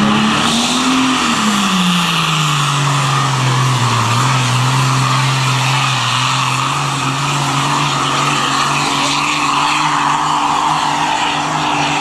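Pulling tractor's diesel engine at full throttle on a pull, its pitch rising briefly, then falling steeply over about two seconds and holding steady lower as the engine lugs down under the sled's growing load.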